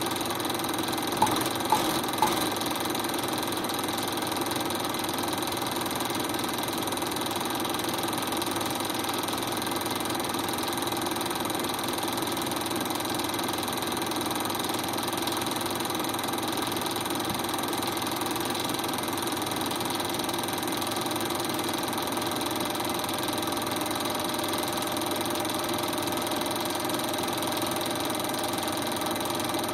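Film projector running: a steady mechanical whirr and clatter, with three sharp clicks about a second in.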